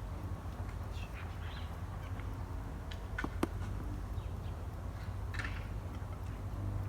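Wood fire crackling with a low steady rumble and scattered sharp pops, the loudest two a little past the middle, while birds call faintly a few times.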